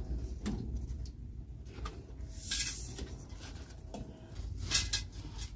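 Hand adjustment of a metal pot hanger over a campfire, giving scattered light clicks and knocks. About halfway through there is a brief scraping rustle, the loudest sound here, all over a low steady rumble.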